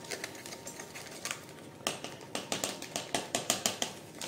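Paper pudding-powder sachets rustling and crinkling in the hands as the powder is shaken out into a pot of milk, with a run of quick, crisp crackles from about two seconds in.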